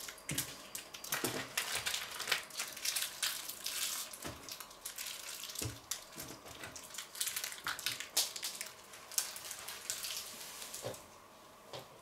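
Rustling and crackling with many small irregular clicks and clatters as rubbish and small tools are handled and rummaged through on a worktable. The sound stops near the end.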